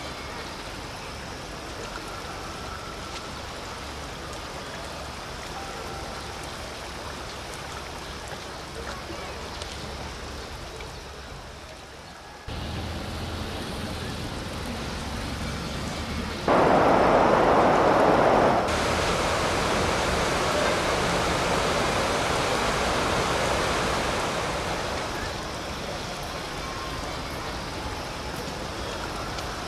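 Steady outdoor ambience with the rush of flowing river water. The noise changes abruptly about twelve seconds in and grows louder for about two seconds a few seconds later.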